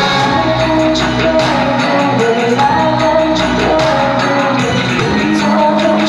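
A female pop singer singing live into a handheld microphone, holding long notes over amplified accompaniment with light percussion.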